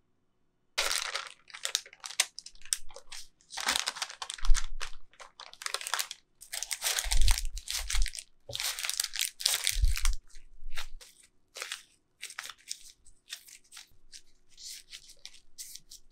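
Parchment paper being crumpled and crinkled by hand in irregular bursts as it is gathered around a dough-wrapped ball of bean paste, with a few soft low thumps as the bundle is pressed and handled.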